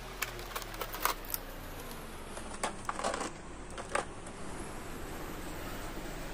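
Clear plastic packaging tray clicking and crackling as an action figure is handled and lifted out of it: a few sharp clicks in the first second and a cluster around three to four seconds in. A steady low hum and hiss sits underneath.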